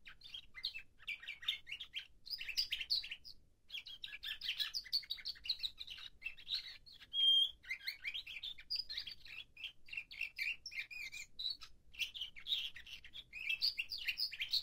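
A nightingale-song canary in its tertip (song-ordering) training period, singing long runs of rapid chirping phrases with two short breaks. Its loudest note is a brief, clear pure whistle about seven seconds in.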